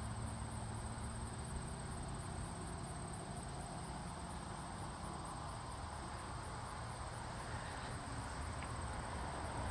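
Outdoor ambience: insects droning steadily at a high pitch over a low, uneven rumble, with no distinct events.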